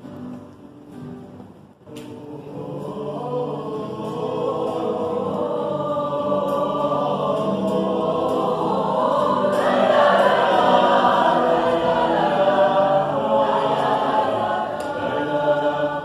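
Mixed choir of women's and men's voices singing together. After a soft opening the voices come in about two seconds in, swell to their loudest about ten seconds in, then ease off near the end.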